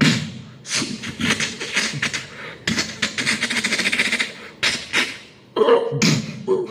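Vocal sound effects made with the mouth: a man imitating gunfire as rapid rattling, hissing bursts, then a short growling dinosaur cry near the end.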